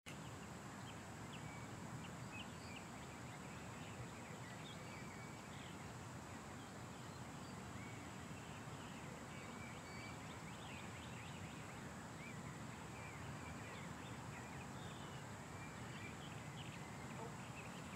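Faint outdoor ambience: birds chirping on and off in the distance over a steady low background hiss.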